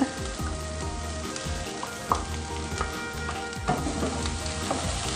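Green beans and scrambled egg sizzling in a nonstick wok as they are stirred with a wooden spatula, with scattered scrapes and clicks and a sharp knock about two seconds in.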